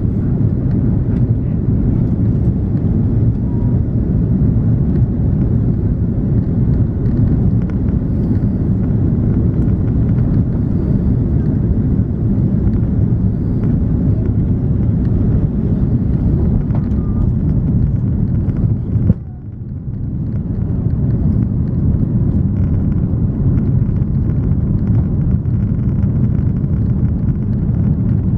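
Steady low cabin noise of an Airbus A340-300 on approach, its engines and the airflow over the airframe heard from a seat behind the wing. About two-thirds of the way through the noise cuts out sharply for a moment, then swells back within a second.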